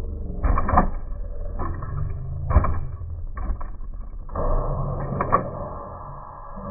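Radio-controlled scale-model 1962 Impala lowrider hopper working its hydraulics-style lift: a small motor whirs in spells while the plastic car's nose rises and drops, with sharp plastic clacks and knocks several times as the body and wheels hit the tabletop.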